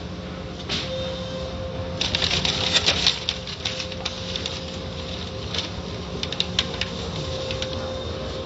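Automatic car wash running: a steady machine hum under a fast, irregular patter of water and cloth wash strips striking, thickest in the middle few seconds.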